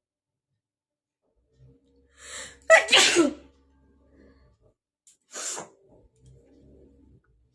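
A person's sneeze, deliberately brought on: a short in-breath, then one loud, sharp sneeze about three seconds in. A second, much quieter burst of breath follows a couple of seconds later.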